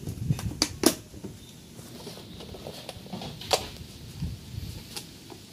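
A few sharp clicks and knocks, scattered and irregular, from tools or parts being handled, over a low background rumble.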